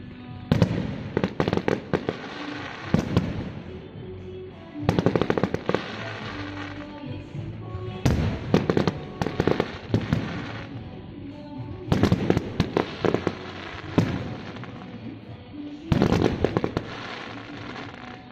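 Fireworks going off in volleys of rapid cracks and bangs, a new volley about every four seconds, with music playing underneath.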